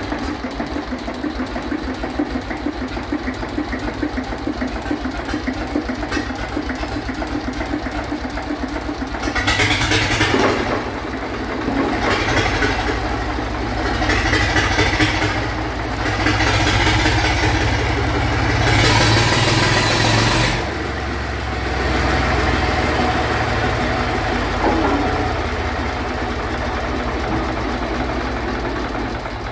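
Lister JP3 three-cylinder diesel engine running with a fast, even firing beat, then revved up and down about five times in quick surges from about nine seconds in, before settling back to a steady run about twenty seconds in.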